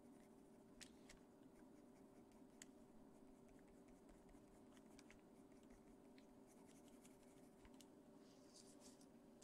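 Faint scratching and ticking of a Caran d'Ache Pablo coloured pencil on paper, with a short higher rustle near the end, over a faint steady hum.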